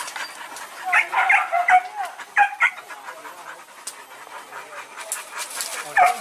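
Hunting dogs yelping and whining in short pitched cries, in a cluster about a second in, again around two and a half seconds and near the end, with scattered crackles from dry leaf litter.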